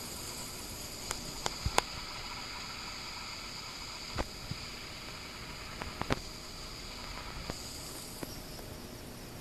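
Steady hiss with a handful of sharp clicks and taps: a cluster between one and two seconds in, one near four seconds, two near six seconds and one near eight seconds.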